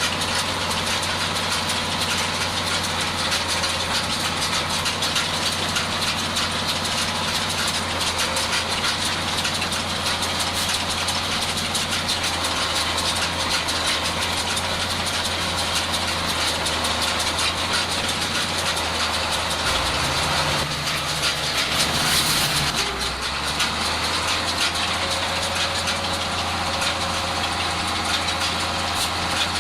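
IHC 1055 tractor's diesel engine running steadily, with a brief louder rush of noise about two-thirds of the way through.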